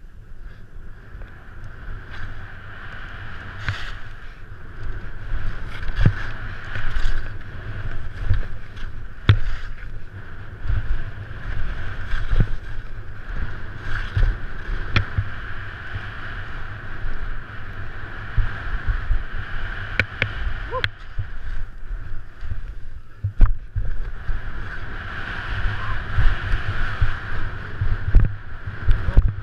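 Wind buffeting a GoPro's microphone while skiing downhill at speed, a heavy, fluttering low rumble, over a steady hiss of skis scraping across packed snow. Sharp knocks from bumps and edge chatter come every second or two.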